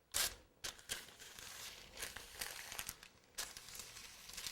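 Short bursts of rustling and crinkling, the first and loudest right at the start.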